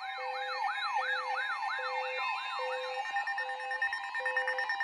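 Electronic siren sounding a fast yelp of falling sweeps, about two and a half a second, with a beeping tone pulsing under it. The sweeps fade out about three seconds in while the beeps go on.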